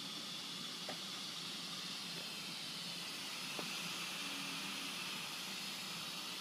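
Steady hiss of air flowing through a premature baby's nasal CPAP breathing support.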